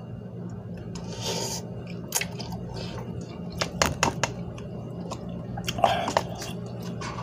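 A person chewing and slurping instant cup noodles, with a few sharp clicks of a plastic fork against the cup around two and four seconds in.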